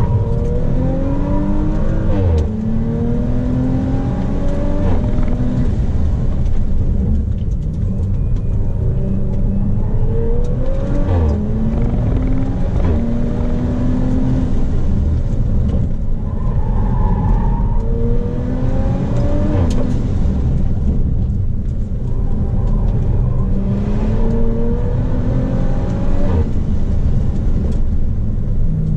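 Audi B9 RS4's twin-turbo V6 heard from inside the cabin, accelerating hard in repeated bursts up a hillclimb course. The engine pitch climbs and then drops sharply at each gear change, about four times, with easing off between the bursts.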